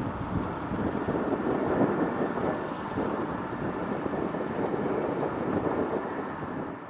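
Distant, steady rumble of a Boeing 777-200ER's GE90 jet engines at taxi power.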